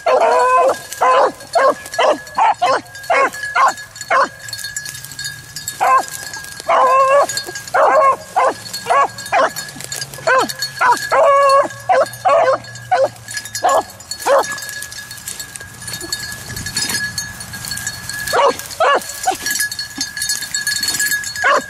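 Rabbit hounds giving tongue on a rabbit's track: bursts of short, repeated barks mixed with a few longer bays, easing off briefly twice before picking up again.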